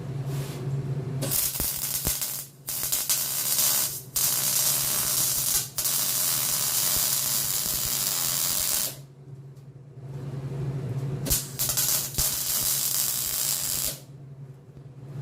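Arc welding on steel angle iron: a crackling hiss in several bursts, the longest about three seconds, with short pauses between them. A steady low hum is heard in the pauses.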